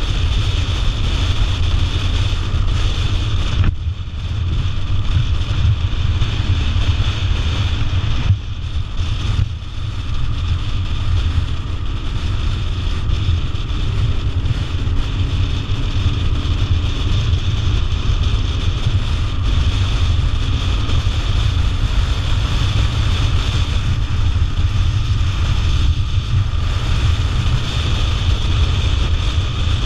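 Wind rushing over the camera microphone on a moving motorcycle at road speed, with engine and tyre noise underneath. The noise drops briefly about four seconds in and again around eight to ten seconds in.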